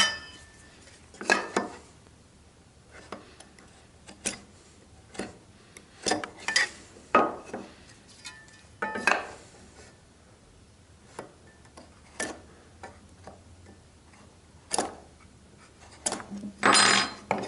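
Irregular light clicks and taps of a steel square and marking knife against timber as knife lines are scored across the joint's shoulders, with short scratchy strokes between quieter gaps.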